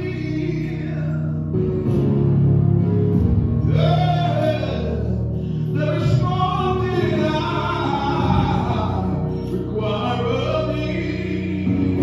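A man singing a gospel song into a microphone, amplified over a steady low accompaniment, with long held notes that bend in pitch.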